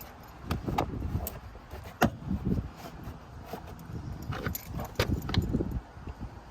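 Scattered clicks, knocks and light metallic clinking from hand tools and parts being handled while a car's inner door panel is being taken off, with a sharper knock about two seconds in.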